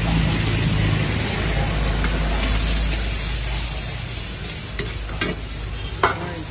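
Egg and diced vegetables sizzling in a hot steel wok while a metal ladle stirs and scrapes them. The ladle clacks sharply against the wok three times in the last two seconds, the last strike the loudest.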